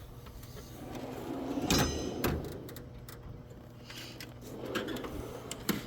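Drawers of a Snap-on steel tool chest sliding on their runners as one is pushed shut and the next pulled open, with sharp knocks about two seconds in and near the end as drawers hit their stops.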